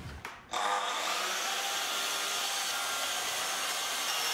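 Sliding miter saw running with its dust extraction: a steady whirring rush that starts about half a second in and holds level.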